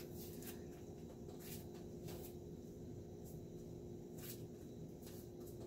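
Faint, irregular crackling from chicken cooking in a covered stainless-steel pot on an electric stove, over a steady low hum.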